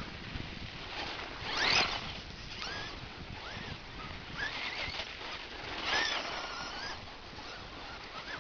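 Birds chirping several times in short rising and falling calls over a steady outdoor hiss.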